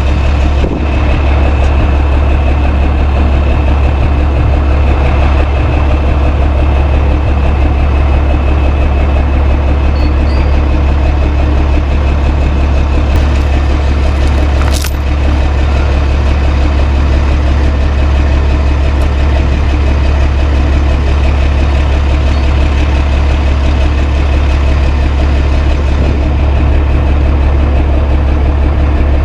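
A heavy vehicle engine idling steadily with a deep, constant hum, with one brief sharp tick about halfway through.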